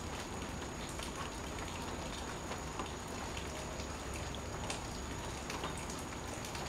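Steady rain falling on rainforest leaves, a constant hiss with scattered small drop ticks.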